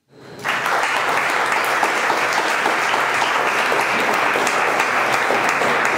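Audience applauding: the clapping swells up within the first half second and then holds steady.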